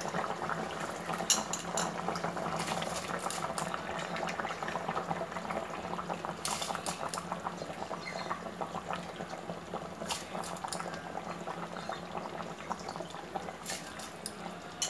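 Chicken stock boiling hard in a large metal pot, a dense steady bubbling and crackling. Rice is being added to the boiling liquid, with a few short sharp clicks and clatters.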